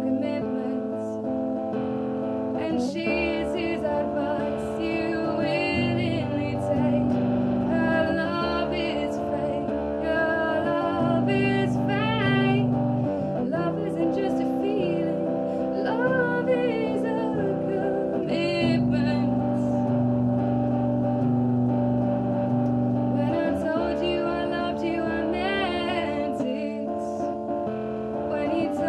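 A woman singing to her own strummed guitar. Her voice comes in about three seconds in, and there is a short gap in the singing in the latter half while the guitar chords carry on.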